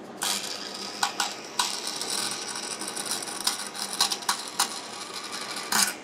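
DoAll vertical bandsaw blade cutting cast brass: a harsh, steady rasping hiss with sharp clicks where the blade catches. The cutting stops just before the end, leaving the saw running quietly underneath.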